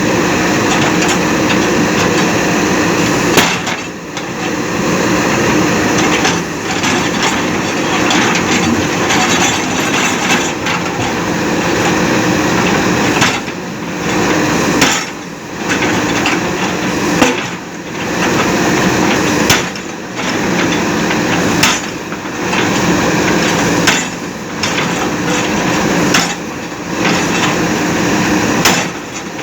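Backhoe loaders working on a demolition: a busy din of rapid hammering and cracking impacts over a running engine, dropping away briefly every two to three seconds before starting again.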